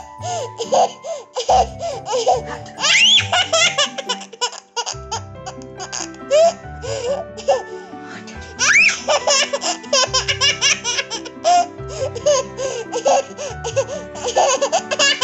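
A toddler girl laughing in repeated peals and giggles, with a couple of high squealing laughs, over background music.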